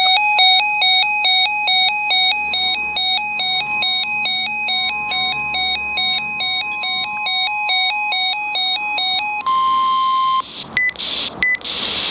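Electronic weather-alert alarm warbling between two pitches several times a second, heralding a National Weather Service severe thunderstorm warning. Near the end the warble stops and a steady single warning tone is left for about a second, then two short blips and hiss as the broadcast comes on.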